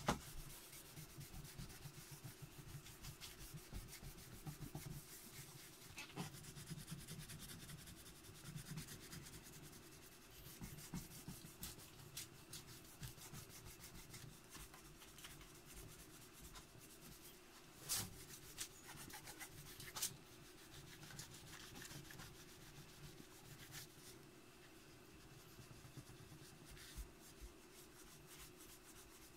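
Cloth rubbed by gloved hands over a chrome-plated Jeep hubcap, wiping off rust-remover paste: a faint, steady rubbing with occasional clicks, two sharper ones about two-thirds of the way through.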